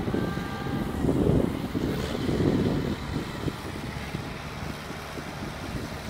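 Combine harvester engine running steadily as it works through the rice field, with wind gusting on the microphone.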